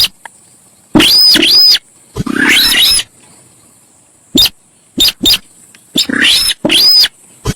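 Sintar sawah bird calling in a loud, irregular series: short single notes and longer harsh calls of about half a second, some with a sweep that rises and falls. A faint steady high hiss runs underneath.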